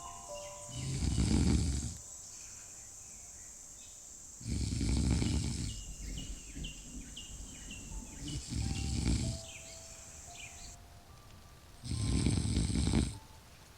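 A person snoring slowly and deeply: four snores, one every three to four seconds.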